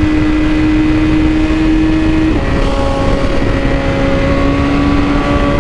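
BMW S1000RR inline-four engine pulling under throttle at highway speed. About two seconds in its pitch drops sharply on an upshift, then climbs steadily again, over wind and road noise.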